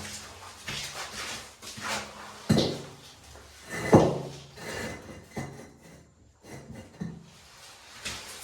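A series of irregular knocks and clunks, roughly one a second, some leaving a short low ring. The loudest come about two and a half and four seconds in.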